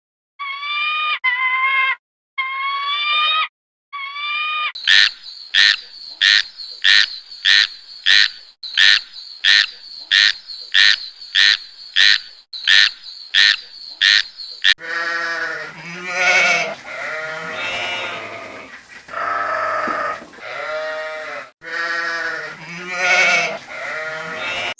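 A run of animal calls. First a few short rising cries, then a rapid, even series of sharp calls about twice a second over a steady high tone, then several goats bleating over one another for the last ten seconds.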